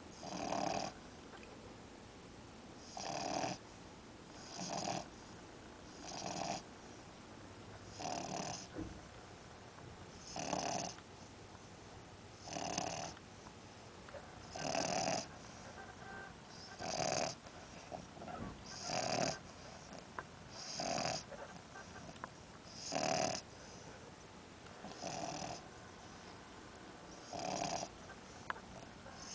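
Miniature English bulldog snoring in its sleep, a short snore about every two seconds in an even rhythm.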